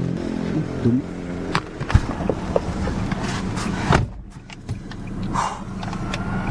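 Vehicle engine running with a steady hum that stops about a second and a half in, followed by scattered clicks and knocks, the sharpest about four seconds in.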